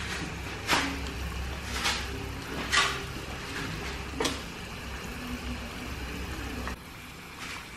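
Whole egg in its shell deep-frying in hot oil in a small saucepan: the oil bubbling and sizzling steadily, with about five sharp pops a second or more apart. The shell has cracked and egg white and yolk are leaking into the oil, which sets it spitting.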